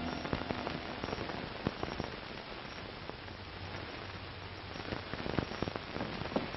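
Hiss and crackle of an old film's optical soundtrack, a steady noise with scattered sharp pops and no dialogue or music.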